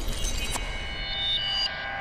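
Electronic logo-sting music: several sustained high synth tones over a low rumble.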